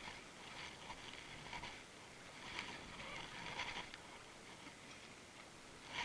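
Canoe paddles dipping and splashing in river water in a rough rhythm of about one stroke a second, over a faint steady rush of the river.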